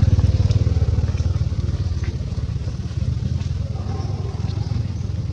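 An engine running with a low, rapidly pulsing rumble that slowly fades away.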